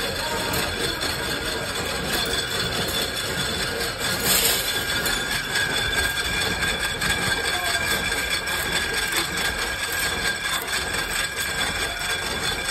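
Spoon-making machinery running: a steady clatter of many small knocks over a constant whine, with a short hiss about four seconds in.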